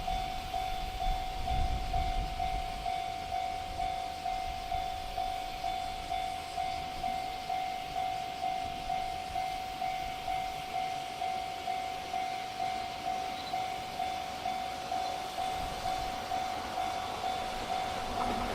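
Railway level-crossing warning bell ringing steadily, about two dings a second. The low rumble of a passing freight train fades out over the first few seconds.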